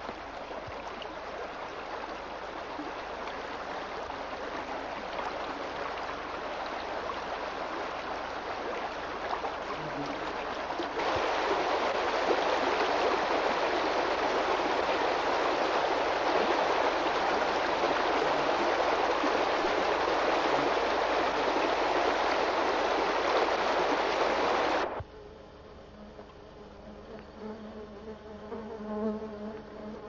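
Rushing water of a shallow, rocky creek: a steady hiss that jumps louder partway through. Near the end it cuts off abruptly to a quieter background with a faint buzzing hum.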